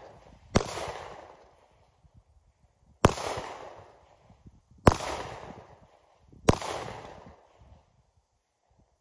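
Four 9mm handgun shots, unevenly spaced about one and a half to two and a half seconds apart, each followed by a long echo trailing off.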